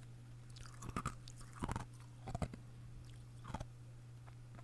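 An ice cube being crunched and chewed in the mouth close to the microphone, done as ASMR: four short wet crunches about a second apart, over a faint steady hum.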